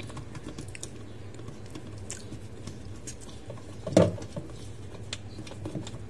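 Light, irregular clicks and ticks of the washing machine pulsator's centre bolt and plastic lock being turned out by hand, with one sharper click about four seconds in.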